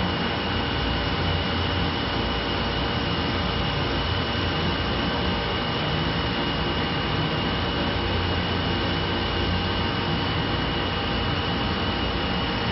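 Three-spindle CNC wood-turning lathe running and cutting, turning wooden blanks into stair-railing spindles: a steady machine whir and cutting noise with a constant high-pitched whine.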